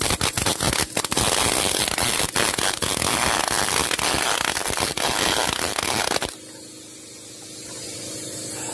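MIG (wire-feed) welder arc crackling as a nut is welded onto a broken stud bolt in an engine block to fuse them together. It is a dense, irregular crackle for about six seconds, then it cuts off abruptly when the trigger is released.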